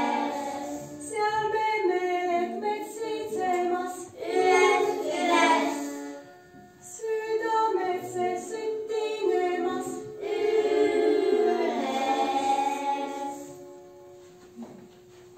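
Group of young children and a woman singing an Estonian regilaul (runic folk song) in short phrases. The singing breaks off briefly about six seconds in and ends near the end.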